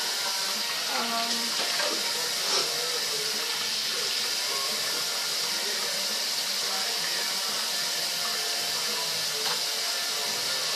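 Kitchen tap running steadily, with a couple of faint knocks.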